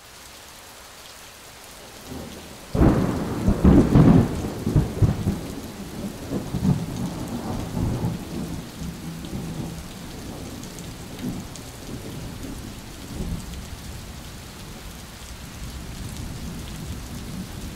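Thunderstorm: steady rain with a sudden loud thunderclap about three seconds in. The thunder rumbles on for several seconds and then settles back into rain, with a few fainter rumbles later.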